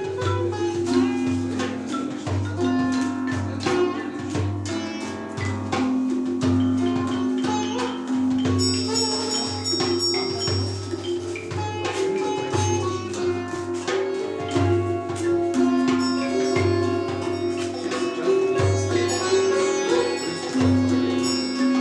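Improvised ethnic-fusion music: a sitar and a djembe playing together over long held low notes that step between pitches, with frequent hand-drum strokes and a cluster of high ringing tones about halfway through.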